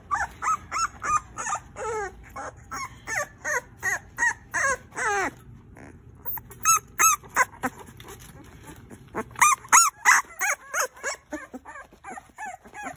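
Young puppies whining and squealing: a fast string of short, high cries that rise and fall in pitch, about two or three a second, with a brief pause about five seconds in.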